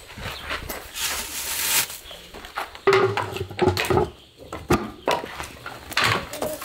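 A rag scrubbing over the metal lid and rim of a barrel roaster, with several sharp knocks and a few short yelp-like cries about halfway through.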